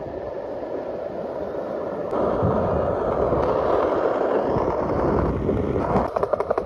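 Steady rushing noise of wind and rolling movement along a street, growing louder about two seconds in.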